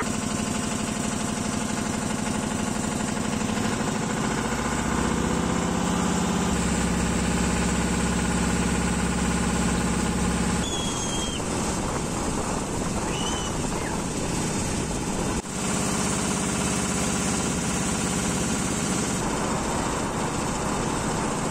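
Motor of an outrigger boat (bangka) running steadily under way; its note shifts a few seconds in and again about halfway through, over the rush of water along the hull.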